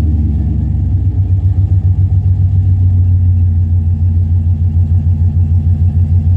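GMC Sierra Classic V8 idling through long-tube headers and 2.5-inch true dual exhaust with an X-pipe and a three-chamber muffler: a deep, steady idle with an even pulse.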